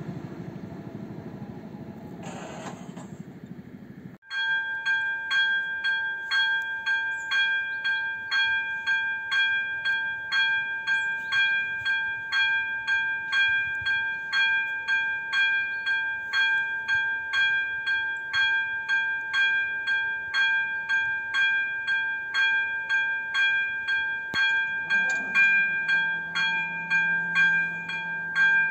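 Electronic warning bell of an AŽD 97 railway level-crossing signal ringing in even dings, a little under two a second, warning of an approaching train. A rumbling noise fills the first four seconds and stops abruptly before the bell starts. Near the end the barrier drive hums as the booms lower.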